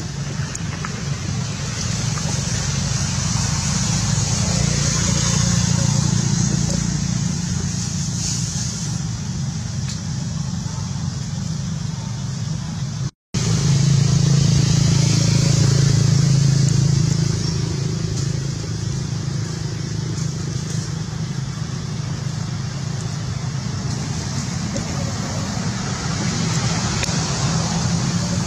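Steady background road traffic, its engine rumble swelling a few seconds in and again just after the middle, under a constant high hiss. The sound cuts out for an instant about halfway.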